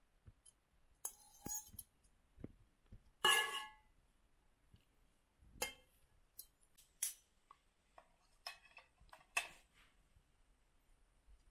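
Metal cutlery and ceramic dishes clinking: a scatter of separate taps and clinks, the loudest about three seconds in with a brief ring.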